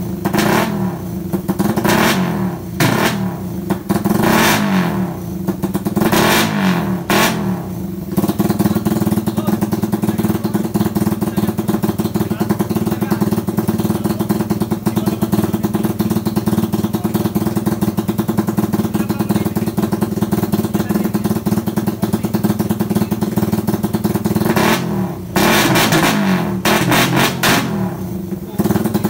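Motorcycle engine with a dual throttle body being revved in a series of quick throttle blips, settling to a steady idle, then blipped again several times near the end.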